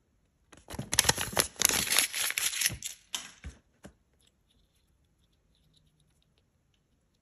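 Crinkling and rustling of a Kinder Surprise toy's folded paper instruction leaflet being handled for about three seconds, then a few faint clicks of small plastic toy pieces.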